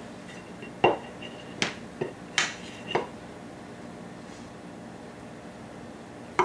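About five sharp clinks and knocks in the first three seconds as a stainless steel bowl and utensils are handled and set down on a table, several with a brief metallic ring.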